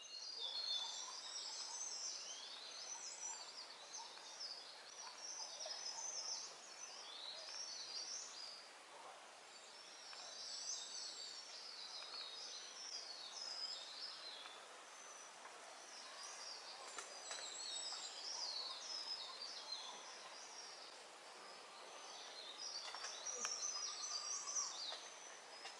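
Many forest birds calling together in a chorus: a dense mix of high chirps, whistles and quick trills, thinner in the middle and busiest again near the end.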